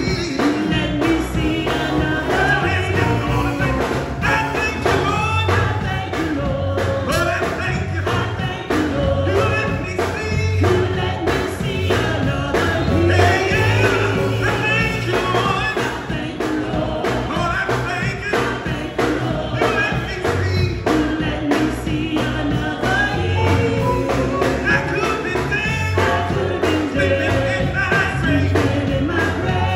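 Gospel choir singing with band accompaniment, strong bass and a steady drum beat.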